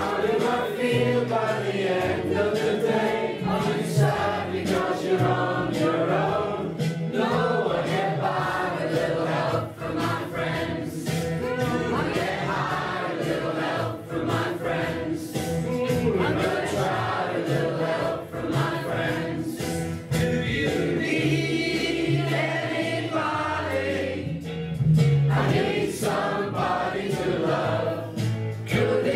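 A group of people singing a song together in chorus, several voices at once.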